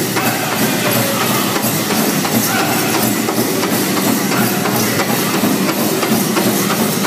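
Pow wow drum group playing a steady, even drumbeat and singing a grand entry song, with the bells and jingles of the dancers' regalia clattering in time.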